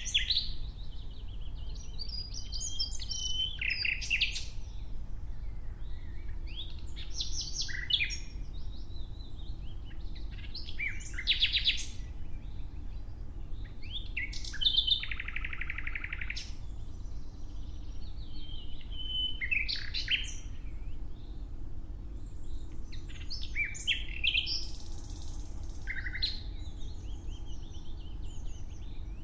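Nightingale singing: short phrases of a second or two every few seconds, built of rapid rattling repeated notes, whistled notes and buzzy notes, with pauses between them. A faint low rumble runs beneath.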